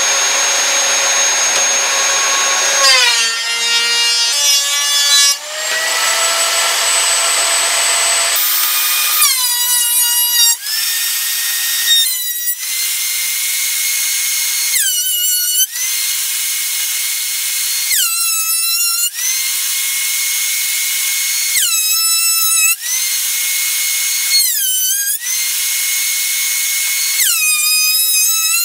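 Benchtop thickness planer running with a steady high whine as it planes a glued-up walnut and red oak board flat, taking off the hardened glue. Every few seconds the pitch dips briefly as the cutterhead bites and the motor slows under load, then climbs back.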